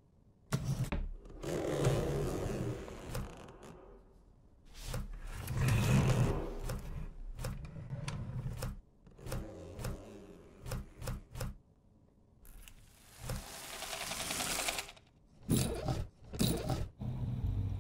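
Cartoon foley for a mechanical acorn-gun contraption: a run of sharp mechanical clicks and knocks, broken by three longer stretches of hissing, whirring machine noise of two to three seconds each.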